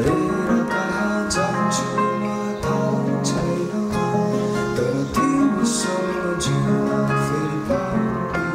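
Two acoustic guitars and a keyboard playing together, with a male voice singing over them.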